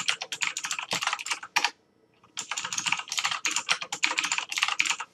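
Computer keyboard typing: two quick runs of keystrokes with a short pause about two seconds in, as a password is typed in.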